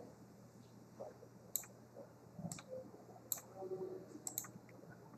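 Computer mouse clicking, about five faint, sharp clicks spaced roughly a second apart.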